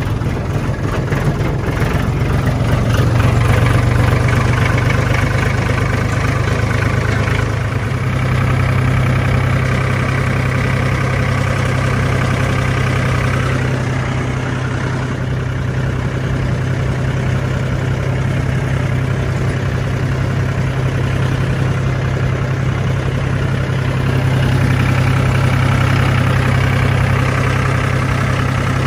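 Tractor's diesel engine running steadily as it drives along, heard close up from aboard the tractor, swelling slightly a few seconds in and again near the end.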